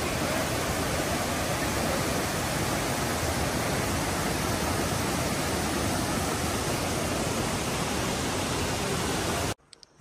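Mountain forest stream rushing over rocks in small cascades: a steady, even rush of water that cuts off abruptly near the end.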